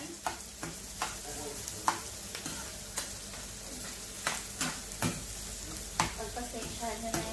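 Minced onions sizzling as they fry in a pan, stirred with a spatula that knocks against the pan in sharp taps roughly once a second.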